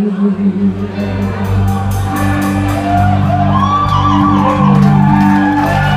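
Live rock band playing the closing bars of a song, a steady bass and sustained chords, while the audience shouts and whoops.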